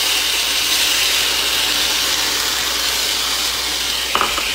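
Water hitting a hot frying pan of oil-toasted, broken-up instant ramen noodles, sizzling and hissing steadily as it flashes to steam.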